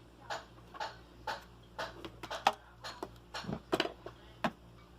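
Steady ticking, about two sharp ticks a second, then a few louder irregular clicks and knocks in the second half.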